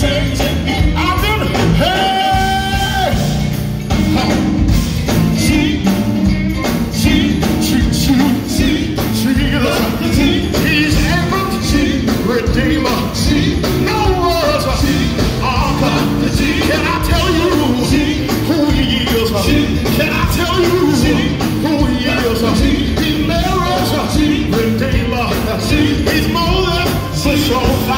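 Live gospel quartet singing lead and harmony over a full band of drums, bass guitar, electric guitar and keyboards, played through a stage PA. A long note is held about two seconds in.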